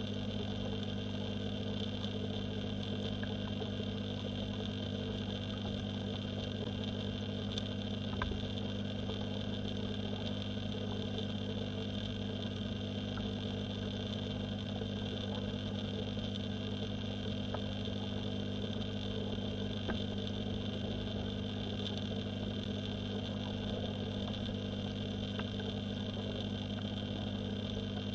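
Steady electric hum of a submerged pond pump, heard through the water, with a few faint ticks.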